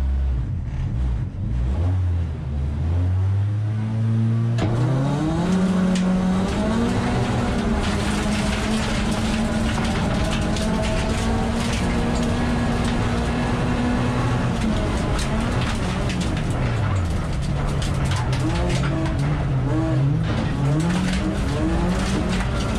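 Race car engine heard from inside the cabin at a standing start: held at revs on the line for about four seconds, then climbing steeply in pitch as the car launches and accelerates, running high at speed and dropping and rising again in the second half. Gravel crackles against the car's underside and body throughout the run.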